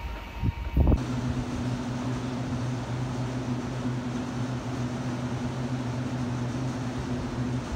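Steady electric hum from a TRA EMU800 electric multiple unit standing at the platform, most likely its air-conditioning and auxiliary equipment, with two fixed low tones under a fan-like hiss. It starts abruptly about a second in, after a few low thumps.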